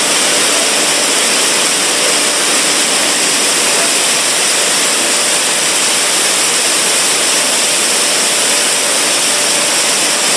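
Maize milling plant machinery running: a loud, steady rushing noise with a faint, constant hum under it and no change throughout.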